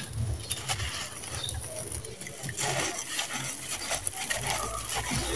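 Dry red sand-cement crumbled and crushed in bare hands, with crackly crunching and grit and dust pattering down in many small clicks, thickest around the middle.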